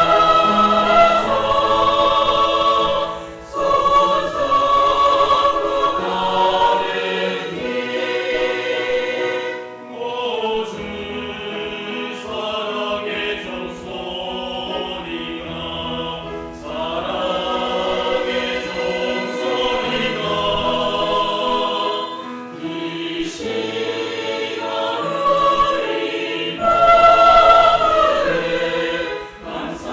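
Church choir singing a sacred song in parts, with long held notes in phrases of about six seconds and short breaks for breath between them.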